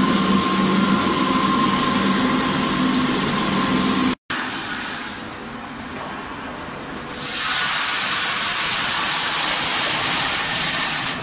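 Feed pellet line machinery running: a loud steady hum with held motor tones. The sound cuts out briefly about four seconds in and returns quieter, then from about seven seconds it turns into a loud, even rushing hiss.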